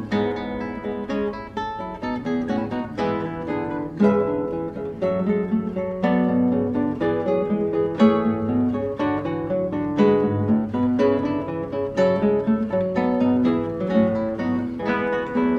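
Background music on acoustic guitar: plucked and strummed notes in a steady, even rhythm.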